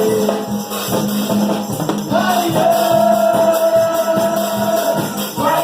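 Gospel praise music with a shaken tambourine and drums keeping a steady beat, and a voice holding one long note from about two seconds in.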